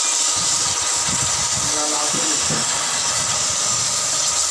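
Sandpaper pressed against a wooden table leg spinning on a lathe: a steady, high sanding hiss.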